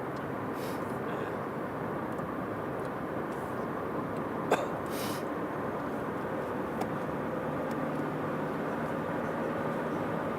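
Steady car cabin noise from driving, with a single sharp click about four and a half seconds in.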